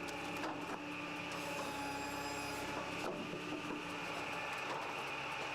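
Posch SpaltFix S280 tractor-driven firewood processor running, a steady mechanical hum with a held tone that fades out about four seconds in, and a few light clicks.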